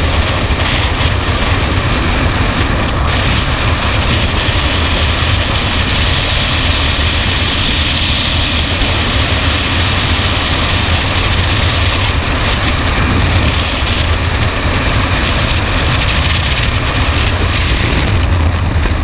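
Wind rushing past a helmet-mounted camera in skydiving freefall: a loud, steady blast of air with a deep rumble under a hiss. Near the end the highest hiss briefly falls away as the parachute opens.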